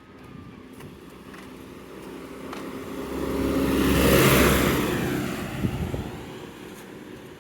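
A motor vehicle driving past on the road, its engine and tyre noise growing louder to a peak about four seconds in, then fading away.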